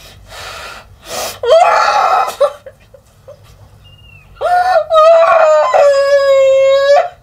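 A woman gagged with tape over her mouth screaming: sharp breaths, a cry about a second and a half in, then a long high held scream from about four and a half seconds in that cuts off near the end.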